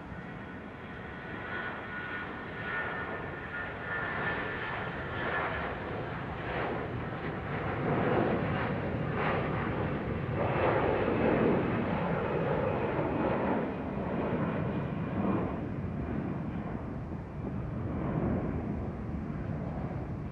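Condor Airbus A321's twin jet engines at takeoff power: a steady whine over a rushing jet noise, growing louder as the airliner accelerates down the runway and lifts off, loudest about halfway through, then easing a little as it climbs away.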